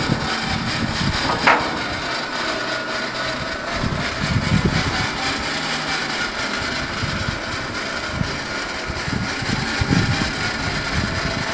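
Truck engine running to power the Switch-N-Go hydraulic hoist as it lowers a steel container body to the ground, with a steady whine over the engine. A short sharp metallic sound comes about a second and a half in.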